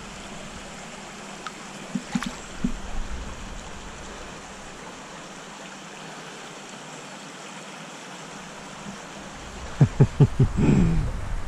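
Shallow stream flowing and trickling steadily. A faint tap or two about two seconds in, and a quick run of sharp knocks near the end, the loudest sound heard.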